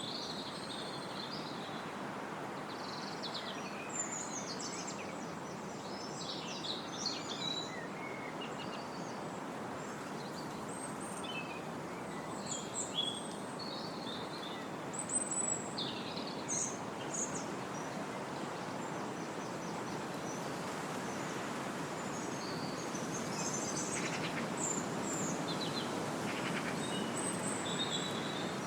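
Wind rushing through trees at a woodland edge, a steady hiss that swells a little toward the end, with small birds chirping and trilling over it.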